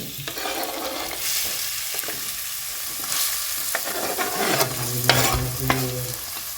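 Food sizzling steadily in hot extra virgin olive oil in a pan as it is stirred, with a few sharp knocks of a utensil against the pan in the second half.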